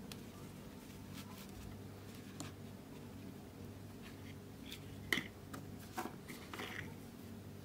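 Kinetic sand being pressed into a small plastic pyramid mould by gloved hands and turned out: soft, crumbly scratching, with a few sharp clicks about five and six seconds in, over a faint steady hum.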